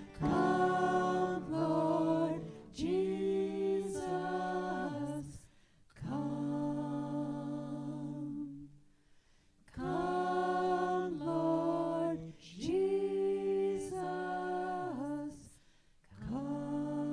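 Unaccompanied voices singing a slow hymn-like piece in harmony, in long held phrases with short pauses between them.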